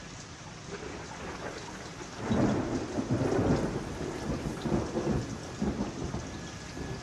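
Steady rain with a roll of thunder that swells in about two seconds in, rumbles on in uneven surges, then fades.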